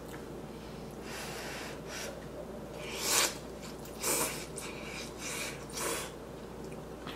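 A person slurping instant ramen noodles from chopsticks: a series of short airy slurps, the loudest about three seconds in.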